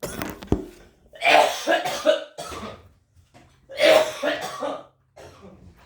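A person coughing in repeated harsh fits, the strongest about a second in and again about four seconds in: coughing from breathing the smoke of a hotboxed garage.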